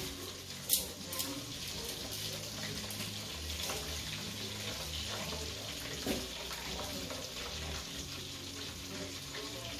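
Steady hiss of pots cooking on a gas hob, with a few sharp metallic clicks from metal tongs stirring in a steel pot; the loudest click comes about a second in.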